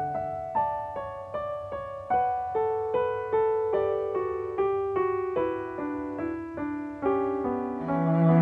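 Instrumental music: a piano plays a slow line of single struck notes, about two a second, stepping downward, and a cello comes back in with a held low note near the end.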